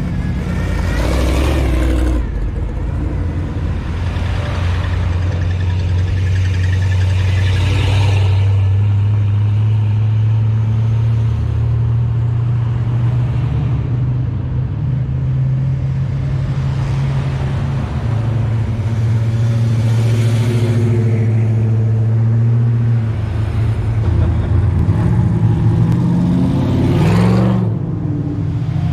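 Engines of classic Chevrolet pickup trucks idling and running steadily as a slow line of them drives past one after another. Several trucks swell up and fade as each passes close, and one engine rises in pitch near the end.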